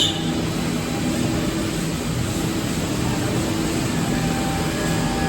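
Multi-spindle woodworking CNC router running with a steady hum and noise, with a brief click right at the start.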